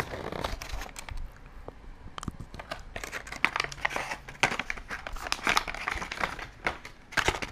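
Product packaging being handled: a cardboard box opened and its plastic insert crinkling and rustling in irregular small crackles.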